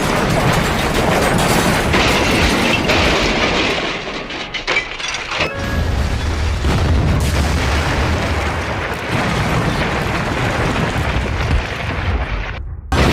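Train crash sound effect: a long, loud crash with booms and heavy rumbling. It cuts off abruptly shortly before the end.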